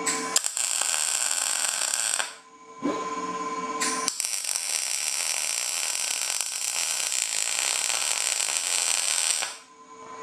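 MIG welder arc running on a galvanized EMT conduit steering wheel: a short bead of about two seconds, then after a brief pause a longer steady bead of about five seconds. At times it sounds a little raspy and popping, caused by the zinc coating on the conduit burning off.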